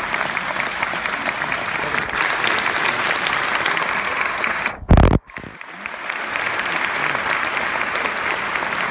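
An audience applauding steadily, dense clapping from many hands. About five seconds in, the clapping briefly cuts out around a single loud, muffled thump.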